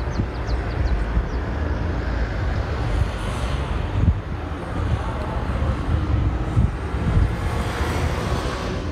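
Outdoor street ambience: a steady low rumble of road traffic, swelling twice as vehicles pass, about three seconds in and again near the end.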